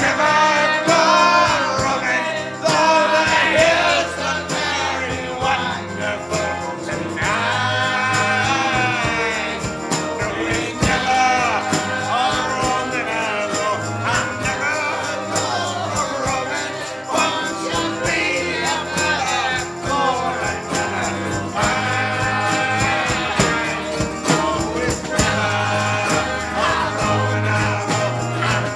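Two male voices singing a ballad together over a strummed acoustic guitar, with a jingling hand percussion keeping time.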